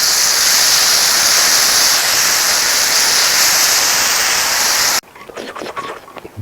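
Pork belly sizzling on a grill: a loud, steady hiss that cuts off abruptly about five seconds in, followed by quieter scattered clicks and taps.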